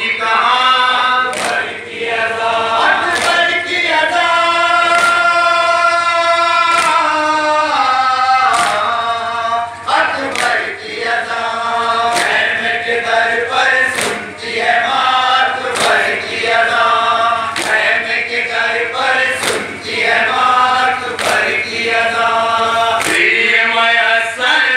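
Male noha reciters sing a Muharram lament through a PA, with a crowd of mourners chanting along. Sharp unison chest-beating strikes (matam) land about every two seconds.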